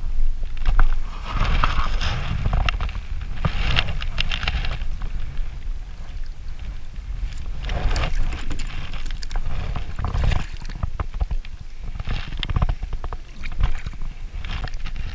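Wind buffeting the microphone in a steady low rumble, with water splashing and slapping against a kayak hull in irregular bursts.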